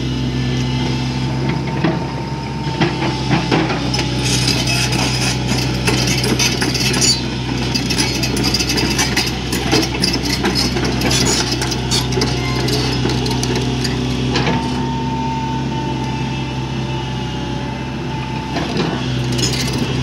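Sany SY140C-9 crawler excavator's diesel engine running steadily while the machine travels and swings, its steel tracks clanking and clicking much of the time. A thin whine comes in near the start and again in the last few seconds.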